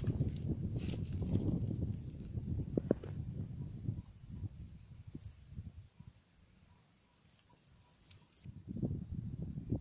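An insect chirping: short high-pitched chirps, evenly spaced at about three a second, stopping about eight and a half seconds in. Low rustling and crunching noises run under it in the first few seconds and come back near the end.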